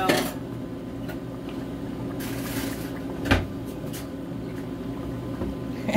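A kitchen cupboard door knocking shut about three seconds in, the loudest sound, among small clicks and a brief hiss of handling, over a steady low hum.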